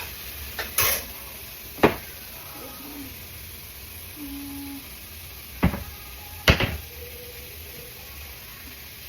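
Kitchen utensils knocking and clinking against cookware: four sharp knocks, two in the first couple of seconds and two more a little past halfway. Under them runs the faint sizzle of onions and garlic frying in oil.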